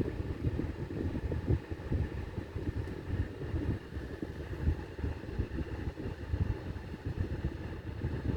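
Low, uneven rumble heard from inside a car with its engine running.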